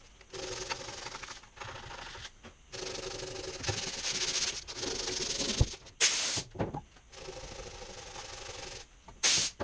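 Sandpaper held in the hand, without a sanding block, rubbing back and forth over the first coat of body filler on a van roof in a string of strokes. There are two short, sharper swipes, one about six seconds in and one near the end.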